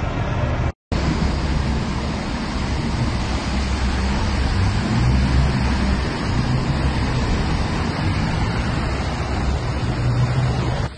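Steady, loud rush of floodwater mixed with wind noise on a phone microphone. It cuts out for a split second about a second in.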